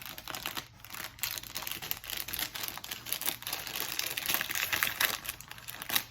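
Crinkly plastic snack wrapper being handled and opened: a dense, unbroken crackle of sharp clicks and rustles.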